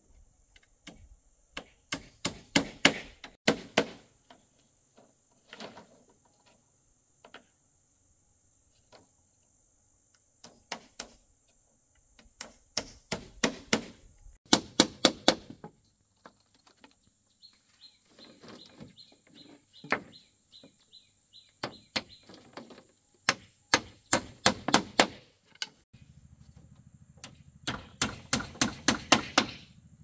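A hand tool striking bamboo in four bursts of rapid, sharp blows, about four a second, with single knocks between them. A steady high insect drone runs underneath.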